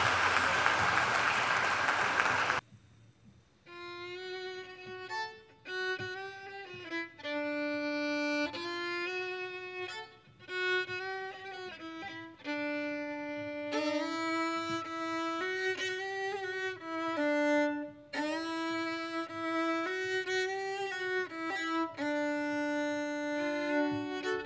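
Audience applause that stops about two and a half seconds in. After a brief pause, two violins play a duet, a melody of held bowed notes.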